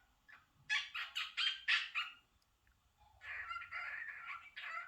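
Pet cockatiel calling: a quick run of short, sharp chirps about a second in, then a longer stretch of chattering.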